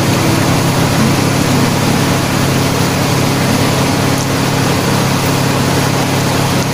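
A steady mechanical hum under a loud, even hiss, like a motor running without change.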